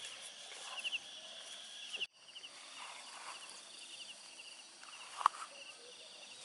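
Insects chirping in short trills about once a second over a steady high insect hum, with one sharp click about five seconds in.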